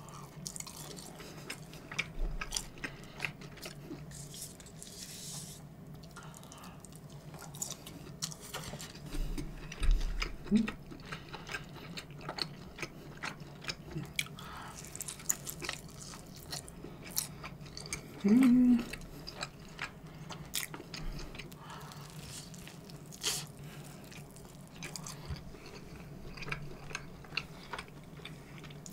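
Close chewing and biting of Chicago-style pizza crust: a string of small crisp, wet mouth clicks. Two brief low hums break in, about ten seconds in and again near eighteen seconds.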